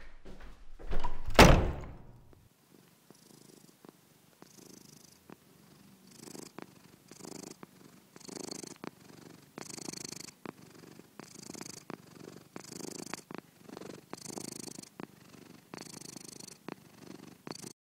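A single loud thump about a second and a half in, then a cat purring in slow, even in-and-out cycles.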